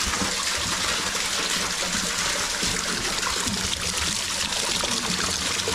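Underground waterfall pouring and splashing steadily down a cave's rock face close by.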